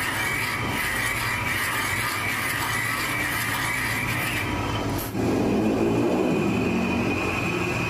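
Metal lathe running, spinning the cast-iron body of a meat grinder in its chuck while the tool works its threaded end: a steady mechanical whine with a high squeal and a low hum. About five seconds in the sound dips briefly, then carries on a little louder and lower.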